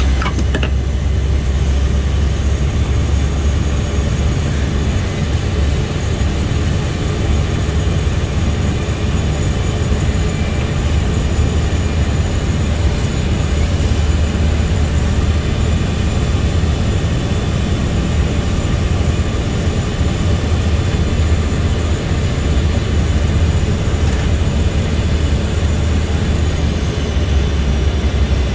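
Cabin noise inside a Cessna 208B Grand Caravan: its single Pratt & Whitney PT6A turboprop engine and propeller droning steadily, with a thin high turbine whine that dips slightly near the end. A brief click sounds at the very start.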